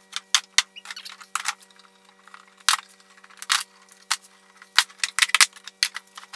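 Background music: a held low drone note under irregular sharp, clicking hits.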